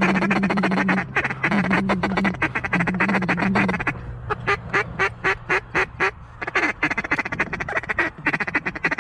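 Mallard quacking: many rapid, overlapping quacks, then from about four seconds in a run of short, evenly spaced quacks. A low steady drone comes and goes during the first four seconds.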